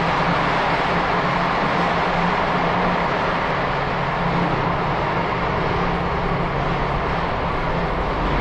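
Steady, loud underground noise of a Montreal Metro station, a constant rumble with a low hum underneath, as heard in a pedestrian corridor.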